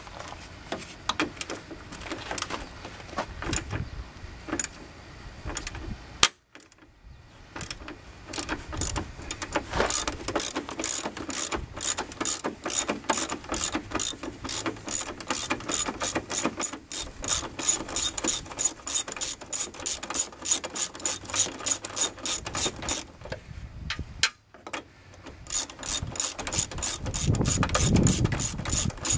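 Socket ratchet on a long extension clicking rapidly and steadily as it backs out a 10 mm headlight mounting bolt, with short pauses about six seconds in and again about 24 seconds in.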